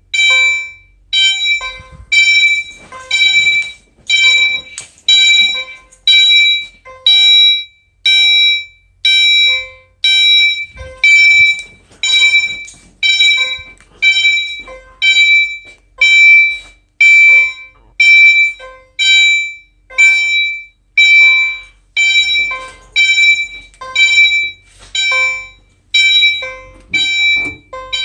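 Fire alarm chime sounding a struck, ringing tone about once a second in a steady repeating pattern, each tone fading quickly before the next.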